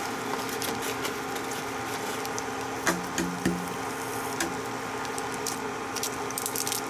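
Eggs frying in butter in a nonstick pan on an induction cooktop: a steady sizzle with scattered crackles and pops, over a steady electrical hum, with a couple of sharper clicks about three seconds in.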